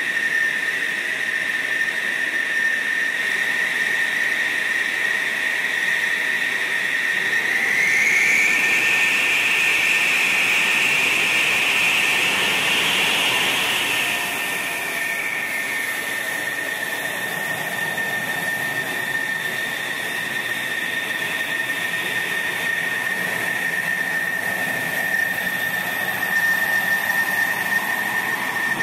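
F-16 fighter's jet engine running at idle: a steady high whine over a rushing hiss. About eight seconds in, a second, higher whine swells up and then fades away again by about fifteen seconds.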